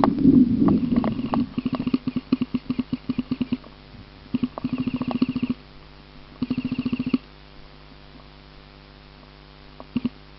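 Airsoft guns firing on full auto in rapid bursts, the longest a couple of seconds, the last two short and tight, after a loud jumble of noise in the first second or so. A few isolated clicks near the end.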